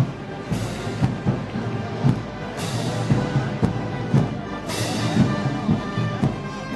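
Festival band music of the Moros y Cristianos kind: brass with a bass drum beating steadily and cymbal crashes about every two seconds.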